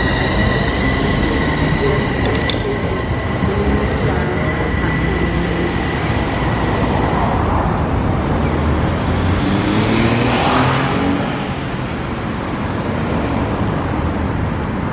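Fukui Railway F1000 'Fukuram' low-floor tram pulling away along street track, with a steady high whine that fades out about seven seconds in and two brief clicks just after two seconds. Road traffic runs underneath, and a vehicle passes about ten seconds in.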